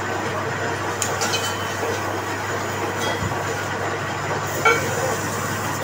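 Manual lathe running steadily, a constant low hum under mechanical noise, with a few light metallic clinks, about a second in and again near the end.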